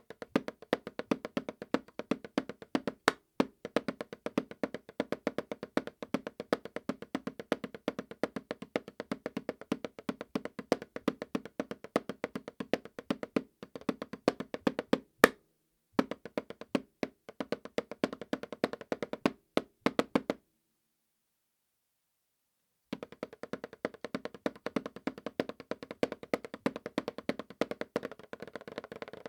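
Drumsticks playing fast, even strokes on a Remo practice pad with a Silentstroke mesh head: a quick stream of taps with a low, dull tone. There is one louder, sharper hit about halfway through, and the playing stops for about two seconds before picking up again.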